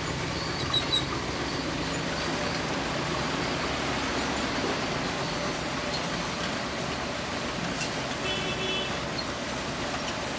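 Heavy road-works machinery running steadily with its engine, with short high chirps now and then.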